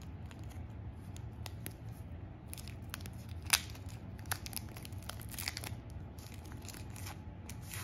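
Thin clear plastic wrapping being torn and peeled off a small remote control, crinkling with scattered crackles and one sharp snap about three and a half seconds in.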